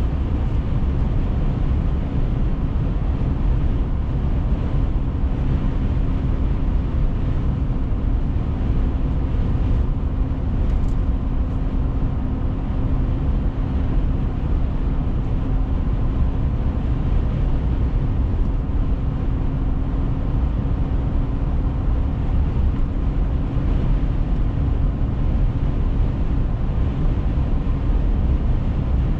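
Steady road noise of a car driving: a low rumble of tyres and engine with a constant hum.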